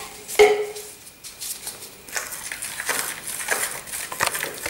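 A stick stirring freshly combined epoxy resin and hardener in a plastic bowl, scraping against the bowl in quick, uneven strokes. There is a single knock about half a second in.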